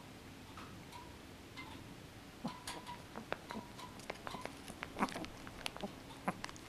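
Small dog mouthing and nibbling at a fabric tag held in fingers: a quick, irregular run of small teeth clicks and snaps, starting about two and a half seconds in.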